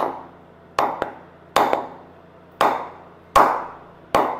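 Wooden mallet knocking the face of a GSI Black Mamba Kashmir willow hard-tennis cricket bat: five sharp knocks, a little under a second apart, each ringing briefly. This is the bat being tapped to show how much life and ping the willow has.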